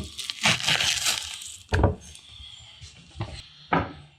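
Silver skin being pulled off a rack of ribs: wet tearing and crackling handling noise, then a few dull thumps as the rack is set down and moved.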